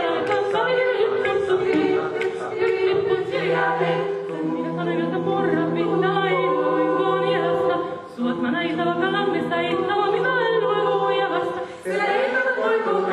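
Mixed choir of men and women singing a cappella in several parts. A low note is held beneath the upper voices for several seconds, with brief breaks between phrases about eight and twelve seconds in.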